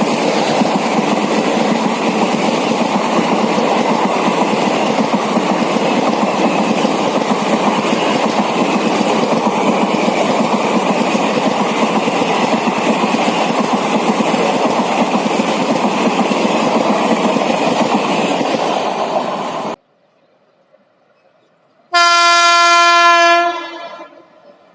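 Express passenger train running through a station at speed: a steady, loud rumble and clatter of wheels on rail that cuts off suddenly near the end. A locomotive horn then sounds once, held for about a second and a half.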